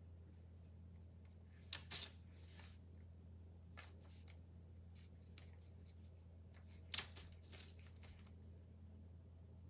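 Near silence over a steady low hum, broken twice, about two seconds in and about seven seconds in, by brief faint scratchy rustles of a paintbrush working on a small wooden letter held against kraft paper.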